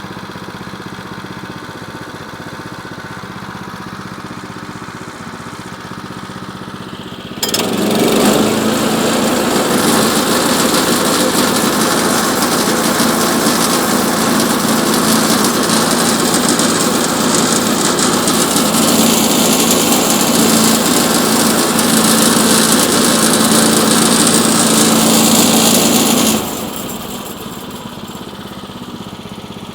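Gasoline engine of a Woodland Mills portable bandsaw mill running at idle, then about seven seconds in throttled up suddenly and running loud with the band blade for about nineteen seconds, as a cut is made through a jack pine log, before dropping abruptly back to idle.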